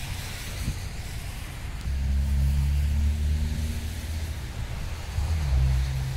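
Motor vehicle running: a low engine rumble with a steady hum that swells about two seconds in and again near the end.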